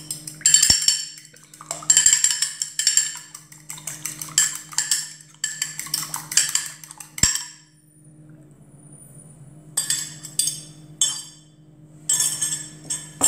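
Fork beating eggs in a small glass dish, a quick run of clinking, tapping strokes against the glass for about seven seconds. After a short pause come two shorter bursts of the same clinking as the eggs are scraped out.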